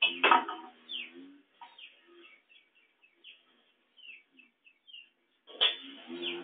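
Small birds chirping: a run of short, high, falling chirps, framed by a louder call right at the start and another from near the end.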